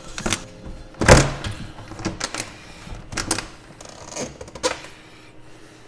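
Hard plastic knocks and clicks as a Tesla Model Y's front-trunk tub is worked loose and pulled free. There is one loud clunk about a second in, then several lighter clicks and taps.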